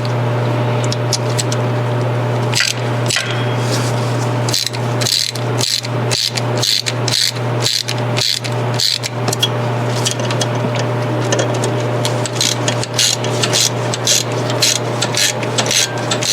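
Hand ratchet clicking in short strokes as cylinder head bolts are snugged down, with a run of evenly spaced strokes in the middle, over a steady low hum.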